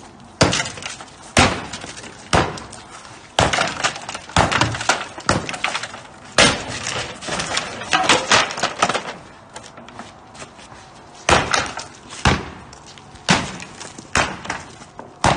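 Sledgehammer blows on a wooden lattice-top fence panel, a sharp crack about once a second, with the wood cracking and splintering as the panel is broken apart.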